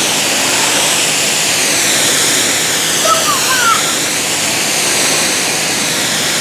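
Water spraying and splashing in a toy car wash, a loud steady hiss. A brief faint voice comes through about three seconds in.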